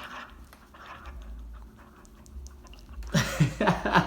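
Dog panting softly, then a louder run of short vocal sounds with falling pitch in the last second.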